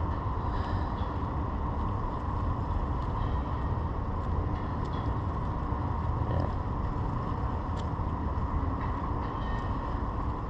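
Steady low rumble and hiss of outdoor background noise, unchanging throughout, with a few faint ticks.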